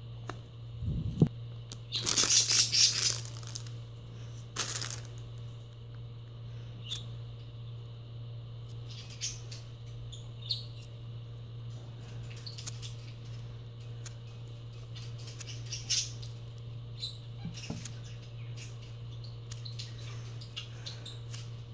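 Foam squishy toys squeezed and handled by hand: soft rustling and crinkling of foam against fingers, with a louder burst of rustling about two seconds in and another near five seconds, then scattered faint rustles, over a steady low hum.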